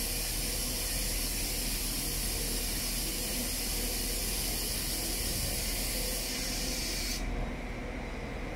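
GB Railfreight Class 66 diesel locomotive and its freight wagons approaching slowly, heard mainly as a steady hiss over a low hum; the upper part of the hiss drops away sharply about seven seconds in.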